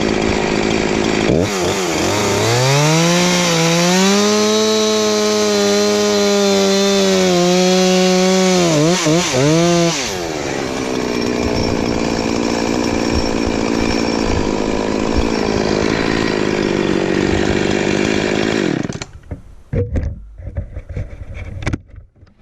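Two-stroke chainsaw cutting into a birch stump at high revs. Its pitch climbs, wavers and dips as the chain works in the cut, then settles lower about halfway through. The saw cuts out near the end, followed by a few knocks.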